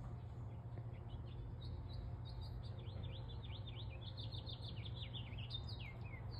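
A small songbird singing a quick run of short, high chirps, each sliding down in pitch, several a second, starting about a second and a half in, over a steady low hum.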